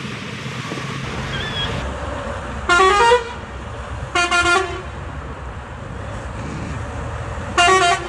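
Multi-tone Indian-style air horn on a semi truck blowing three short blasts, the first stepping up in pitch, the second broken into quick toots, the last near the end. The truck's engine rumbles steadily underneath.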